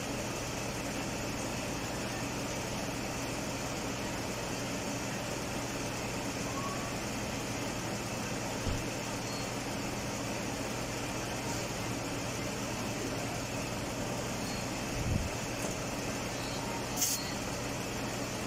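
Mazda CX-9 engine idling steadily, a constant hum, while the car is hooked up to AC manifold gauges for a refrigerant charge. Two soft low thumps come partway through, and a short hiss comes near the end.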